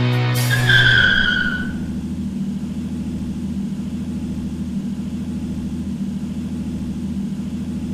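Instrumental break in a ballad: a high held melody note fades out within the first two seconds, leaving a low, steady droning chord underneath.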